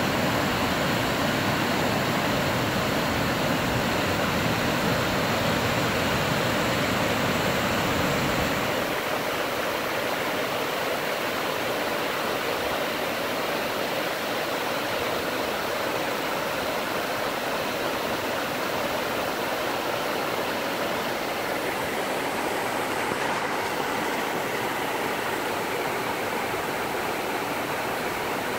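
Creek water rushing steadily over a series of low stepped rock ledges, a small multi-chute waterfall. A heavier low rumble under it drops away about eight seconds in.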